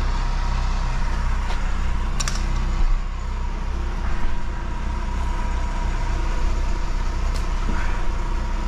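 Diesel engine of a concrete mixer truck running steadily: a low rumble with a faint steady whine above it. A few short sharp clicks are heard over it.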